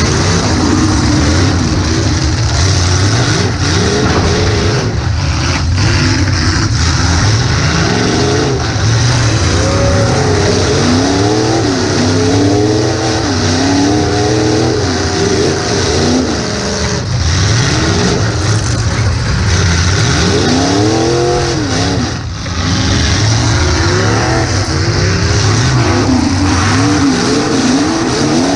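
Demolition derby car's engine, heard from inside the cabin, revving up and falling back over and over as the car accelerates and backs off, with a few sharp knocks along the way.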